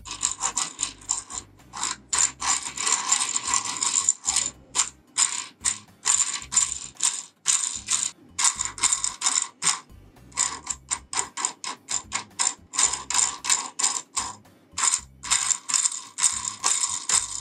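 Hand-spun 3D-printed plastic spur gear pair, a large gear meshing with a small pinion on a printed base: the teeth make a fast rattling whir in repeated bursts, each spin lasting from a fraction of a second to about two seconds.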